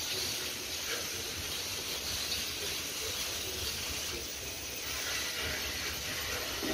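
Steady outdoor hiss over a low, uneven rumble, with no distinct events.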